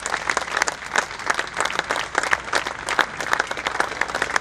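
Crowd applauding, with many hands clapping in a dense, irregular patter.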